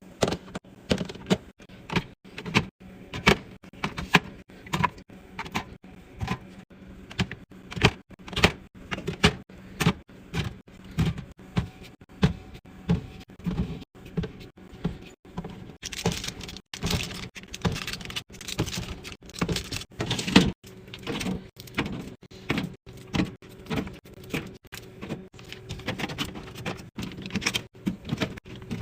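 A quick, steady series of clicks, knocks and sliding sounds, about two a second, like plastic containers, lids and fridge drawers being handled and set down.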